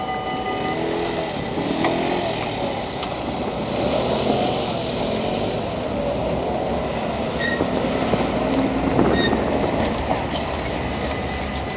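Busy city street noise as a crowd of cyclists crosses: a steady traffic hum with bicycles passing, scattered voices and a few short clicks.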